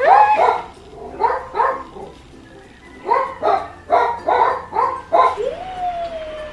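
A dog barking in quick runs of short barks, ending with one long falling whine.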